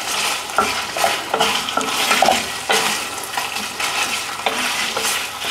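Tocino (sweet cured pork) frying in oil in a pan with a steady sizzle, while a utensil is turned through it, scraping and clinking against the pan several times.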